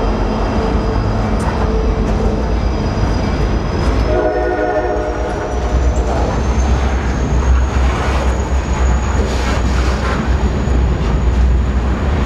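Freight train's covered hopper cars rolling past close by, a steady rumble with wheel-on-rail clatter. About four seconds in, the locomotive's multi-tone air horn sounds once for about a second and a half.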